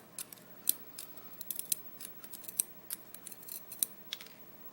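Light, sharp metallic clicks and ticks, irregularly spaced, from small pins and parts of a disassembled lock being handled and set down.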